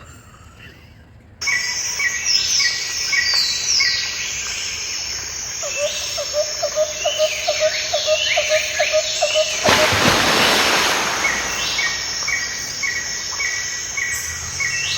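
Bird-like chirps and descending whistles repeating over a steady hiss. A loud burst of hiss comes about ten seconds in.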